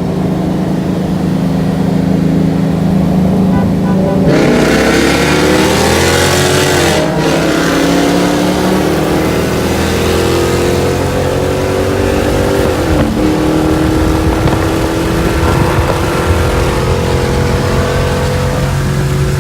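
A car engine runs steadily, then about four seconds in accelerates hard at full throttle. Its pitch climbs through the gears, with two upshifts where the note drops sharply and then climbs again.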